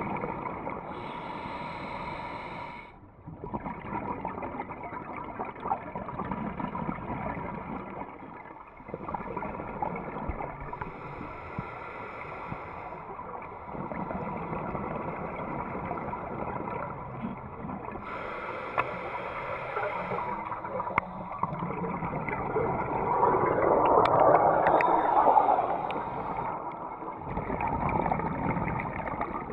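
Muffled underwater sound through a GoPro's waterproof housing: a scuba diver breathing through a regulator, with a short hiss of inhaling every several seconds and gurgling exhaled bubbles, loudest about three quarters of the way through.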